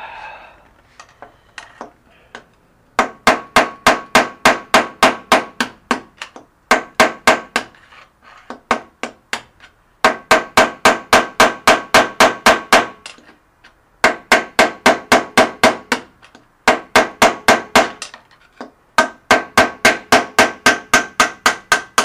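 Hammer striking metal, driving an old bearing out of a spin bike: runs of quick blows, about five a second, with short pauses between runs, each blow leaving a ringing metallic tone.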